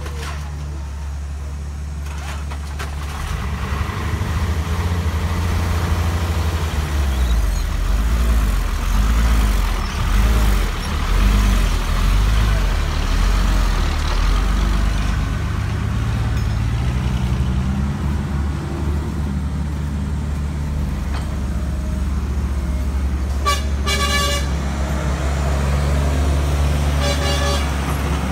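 Diesel engines of a dump truck and a tracked excavator running, a low steady hum that swells and pulses for several seconds from about four seconds in. Two short high-pitched tones sound near the end.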